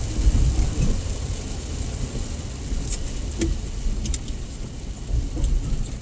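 Steady low rumble inside a moving car in the rain, with a few scattered sharp ticks on the body.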